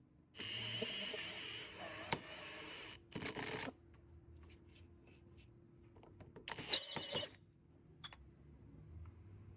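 Clattering handling noise with light metallic clinks: a longer burst near the start, two shorter ones later and a single click near the end.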